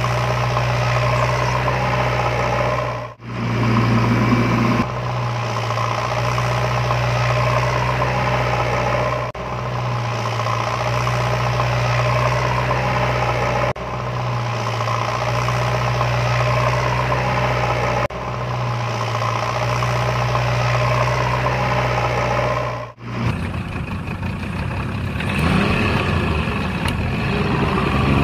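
Steady engine-like drone with a strong low hum, broken by short sharp cuts every few seconds; near the end it gives way to a rougher, less even running sound.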